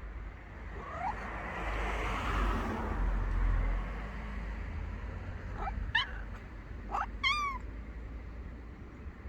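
Ginger cat meowing: one short call about a second in, then a few brief chirping meows near six seconds and again near seven, the last one longer, rising and falling in pitch. A rushing noise comes in between, about two to three seconds in, over a steady low rumble.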